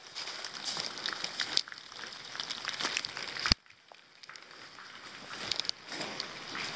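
Rain falling, with many scattered clicks and crackles; the sound drops away abruptly about halfway through, then comes back fainter.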